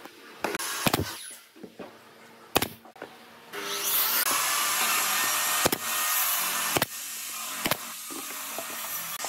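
Wooden panels being handled and set against each other on a workbench: five or so sharp wooden knocks spaced a second or two apart. A steady hiss starts a few seconds in and keeps going.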